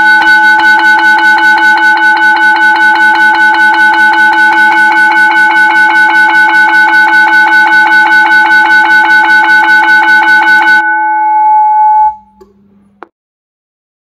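School bell ringtone played through two horn loudspeakers by an automatic bell timer: a loud, continuous bell ring of rapid, evenly repeated strikes that cuts off about 11 seconds in, its tone dying away over the next second, followed by a faint click.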